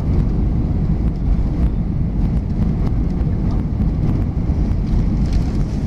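Steady cabin noise inside an Airbus A320 descending on approach: an even, deep rush of airflow and engine noise heard through the fuselage.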